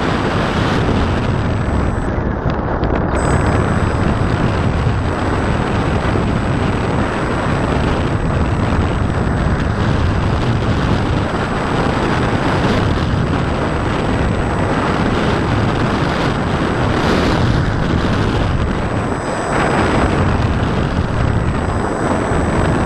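Steady rush of wind over the microphone of a camera mounted on a Bixler 2 foam RC plane in flight, mixed with the noise of its electric motor and propeller, as it descends on its landing approach. A faint steady high whine runs underneath.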